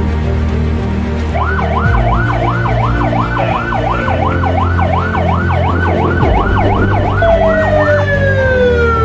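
Electronic siren of an escort vehicle yelping rapidly, about three up-and-down sweeps a second, then changing to a falling tone near the end. Background music runs underneath.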